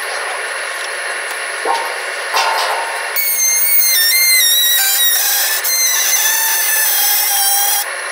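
Screw flight cold rolling machine running while forming steel strip into auger flighting. About three seconds in, a loud high metallic squeal sets in, stepping up and down in pitch, and it cuts off suddenly near the end.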